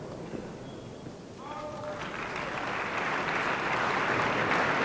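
Tennis crowd applauding: the clapping starts about a second and a half in and swells, getting louder toward the end.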